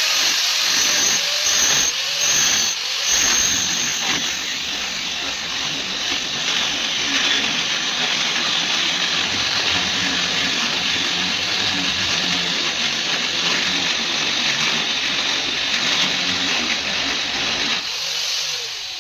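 A metalworking power tool working on steel makes a steady, loud hissing noise, with a few faint knocks in the first few seconds. It tapers off near the end.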